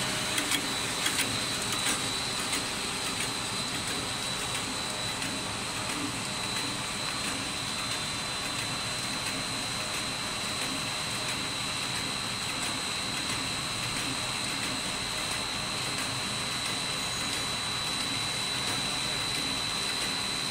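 Puffed corn snack extrusion line running: steady mechanical noise with a constant high whine, and a few clicks in the first couple of seconds.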